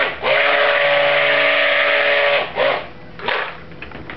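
Stick blender running in a small tub of cold process soap batter, blending in mica colourant: a steady motor whine that stops about two and a half seconds in, followed by two short pulses.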